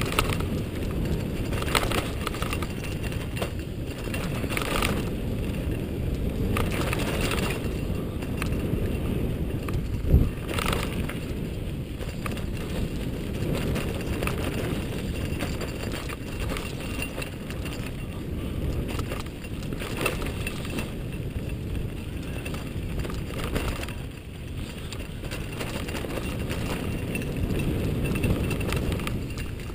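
29er mountain bike rolling fast down a dirt singletrack: tyres on dirt and stones, with the bike rattling over bumps and a steady low rumble of wind on the microphone. One louder knock stands out about ten seconds in.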